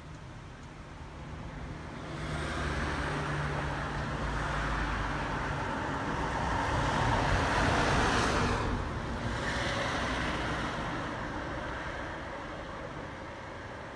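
Road traffic passing: a van and a small car drive by, their engine and tyre noise swelling to a peak about eight seconds in and then fading away.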